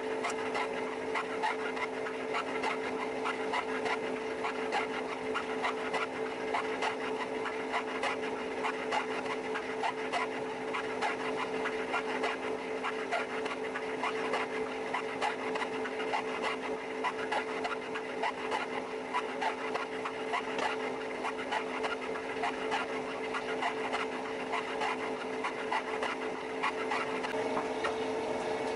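Free hobbing: a triple-start gear hob cutting the teeth of a worm wheel. The machine drive gives a steady hum, under a dense, rapid crackle of the cutting edges taking chips.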